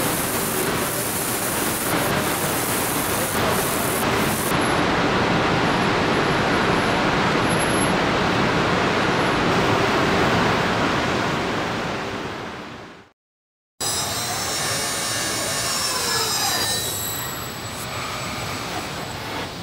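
Steady rushing hiss of spray nozzles in a car-body paint-shop booth, which fades away and cuts to silence about two thirds through. Then comes car-assembly-line machinery noise with high thin tones and a few falling squeals.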